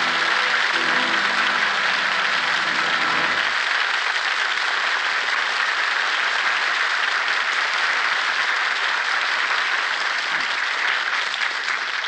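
Studio audience applauding steadily, with the orchestra's act-closing music fading out underneath during the first three or four seconds.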